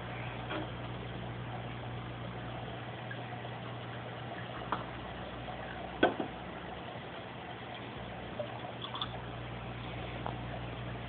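Aquarium air pump humming steadily while its air stone bubbles in the tank water, with a few faint taps.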